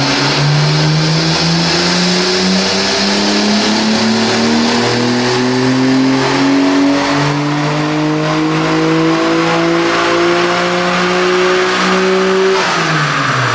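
Nissan Skyline R32 GT-R's twin-turbo straight-six making a full-throttle pull on a chassis dyno at stock boost. The engine note rises steadily in pitch for about twelve seconds, then the throttle closes near the end and the revs drop away.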